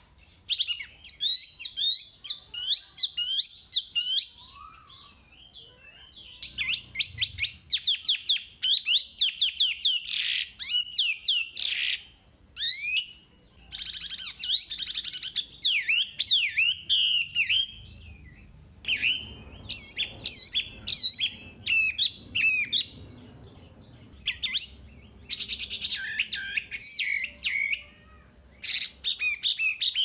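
Chinese hwamei (wambi) in full song: loud, varied phrases of rapid sweeping whistles and fast trills, delivered in bursts with short pauses between them.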